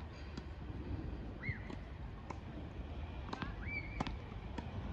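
A bird chirping a few short calls, and a tennis ball bounced a few times on a hard court before a serve, with the sharpest knock about four seconds in.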